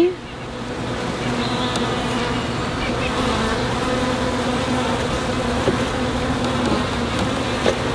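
A colony of honeybees buzzing around an opened hive during a frame inspection: a steady, continuous hum.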